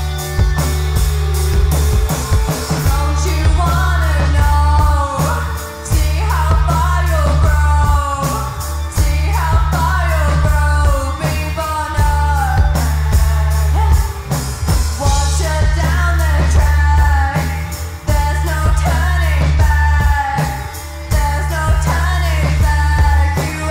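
Alt-indie rock band playing: electric guitar, bass guitar and drum kit, with a steady heavy bass line and regular drum beats. A voice sings a melody over it from a few seconds in.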